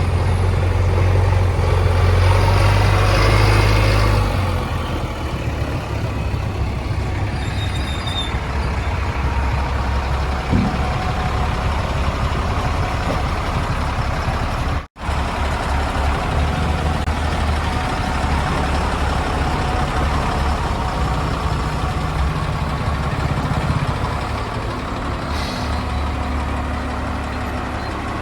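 JCB 3DX backhoe loader's diesel engine working hard. It runs louder for the first four seconds, then settles to a steady running sound. The sound cuts out for an instant about halfway through.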